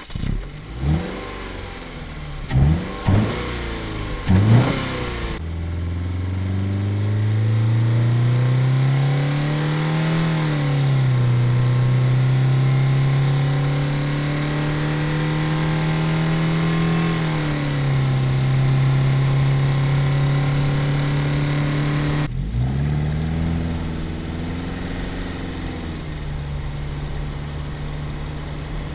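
Subaru Crosstrek's flat-four engine: four quick revs with short falls in between, then a steady run whose pitch climbs, drops about ten seconds in, climbs again and drops and holds, as when accelerating through gear changes. Near the end a short blip of the throttle, then a lower steady run.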